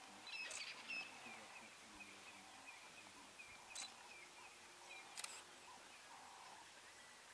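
A few sharp camera shutter clicks over quiet bush ambience, with short high-pitched chirps repeating faintly, clearest in the first second.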